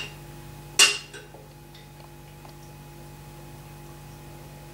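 Glass bottle clinking sharply against a drinking glass about a second in, with a brief ring. Then the dark drink is poured quietly into the glass over a steady low hum.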